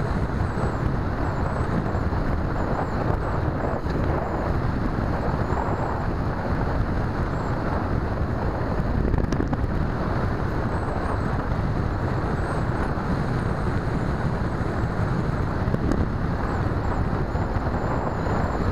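Steady rush of wind over the microphone of a camera mounted on a Bixler 2 foam RC plane in flight, mixed with the plane's electric motor and propeller running at constant throttle. A faint high whine wavers above it.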